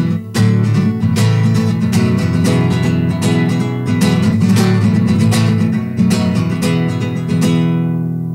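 Nylon-string classical guitar played solo: a quick instrumental run of plucked and strummed chords that stops near the end, leaving the last chord to ring out.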